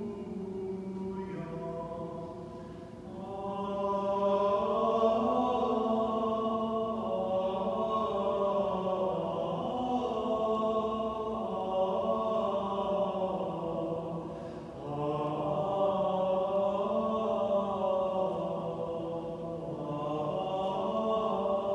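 The responsorial psalm is sung in a slow chant of held notes, in phrases with short breaks about three seconds in and again about fifteen seconds in.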